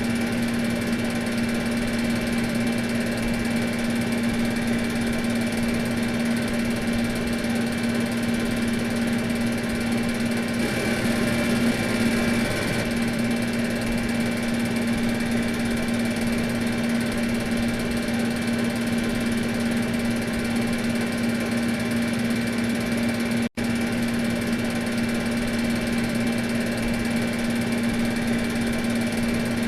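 Air conditioner motor running with a steady hum: one strong low tone with fainter high-pitched tones above it over an even mechanical rush. It cuts out for an instant about three-quarters of the way through.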